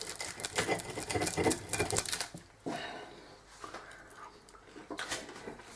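Knife and fork clicking and scraping against a plate in a quick run of small clicks, then a few scattered clicks near the end.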